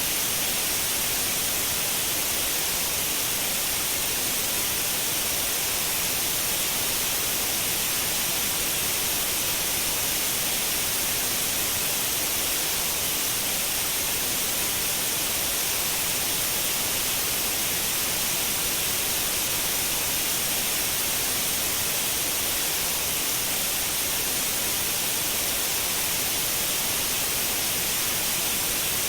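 Continuous white noise: a steady, even hiss that does not change, its energy heaviest in the upper range.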